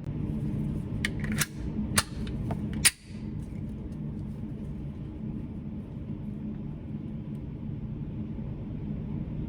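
Steady low hum of an indoor shooting range's ventilation, with a few sharp cracks in the first three seconds, the loudest about three seconds in.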